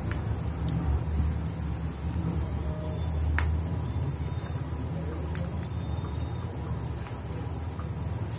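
Chicken tikka skewers sizzling and crackling over a charcoal grill, a steady hiss with a few sharp clicks, over a low rumble.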